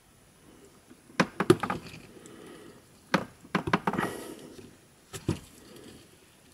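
Small sharp clicks and knocks as a JBL GO 2 speaker's circuit board and plastic casing are handled with gloved hands to unplug the battery's small wire connector. There is a cluster about a second in, another from about three to four seconds in, and a single click a little past five seconds, with a faint rustle of the gloves in between.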